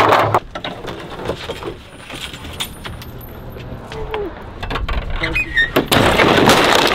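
Knocks, clatter and scraping as a hard one-piece pickup bed cover is lifted off the truck bed and handled. There is a sharp knock right at the start, scattered knocks through the middle, and a longer, louder stretch of scraping noise from about five seconds in.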